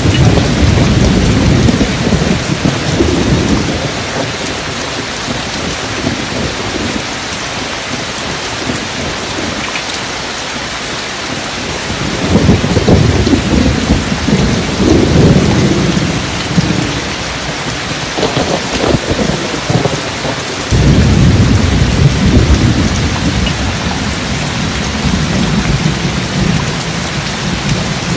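Steady heavy rain with deep rolling thunder. The rumbles swell and fade several times: one near the start, a long one through the middle, and another in the last third.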